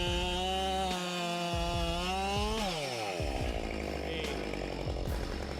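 Two-stroke chainsaw running at high revs with a steady whine; a little over halfway through the revs drop sharply and a rougher, noisier sound follows.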